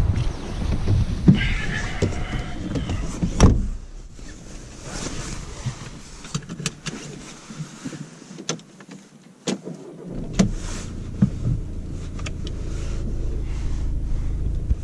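A car door swings open and the driver climbs in; wind buffets the microphone. The door shuts with a solid thud about three and a half seconds in. Small clicks sound inside the quiet cabin, and about ten seconds in the Volkswagen Passat's 2.0 TDI diesel engine starts and settles into a steady idle.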